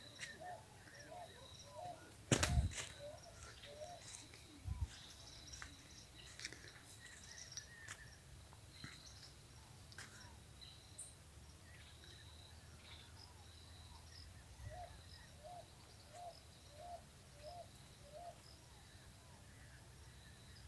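Quiet outdoor morning ambience with birds calling, including a run of about six short, repeated low calls near the end, over a faint high steady tone that comes and goes. A single loud thump about two and a half seconds in.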